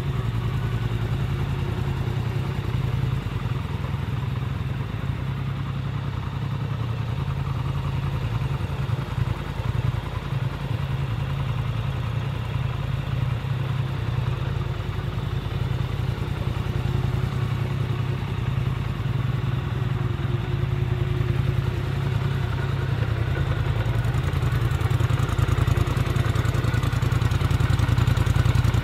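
Polaris Sportsman ATV parallel-twin engines idling steadily, growing a little louder near the end.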